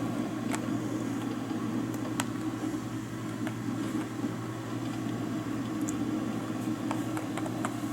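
Desktop computer running with a steady fan hum, with a few faint, irregular soft clicks over it.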